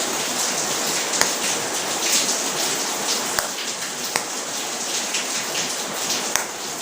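Steady hissing background noise, like rain, with a few short sharp clicks about a second in, around three and four seconds, and near the end as a wallet is handled and opened.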